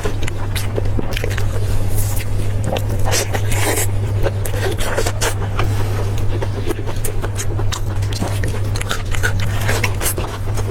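Close-miked chewing and biting of pork: an irregular run of sticky, wet mouth clicks, over a steady low hum.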